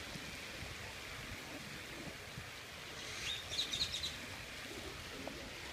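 Steady wet outdoor background noise, with a short run of high bird chirps about three seconds in.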